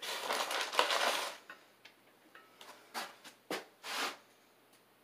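Keyless chuck of a cordless drill being twisted tight by hand on a newly fitted bit: a grating ratchet noise for just over a second, then a few small ticks and three short sharp clicks about three to four seconds in.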